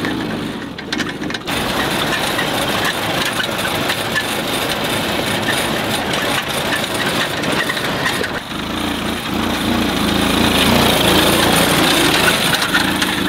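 Small engine of a child-sized ride-on tractor running steadily under load as it pulls a trailer full of dirt. It grows a little louder about ten seconds in.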